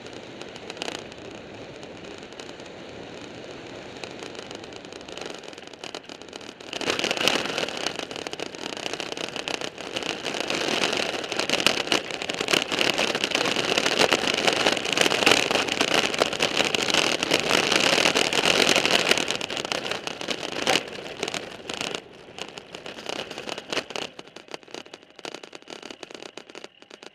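Engineless gravity-racer cart coasting fast downhill: its wheels rumble and rattle over the street, with wind buffeting the onboard microphone. About seven seconds in it turns much louder and harsher as the cart speeds over a shaking stretch, then eases off near the end.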